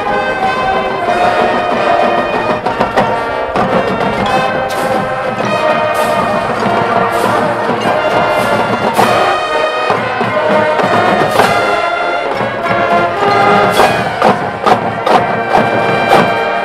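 High school marching band playing: brass holding full chords over drumline hits and cymbal crashes.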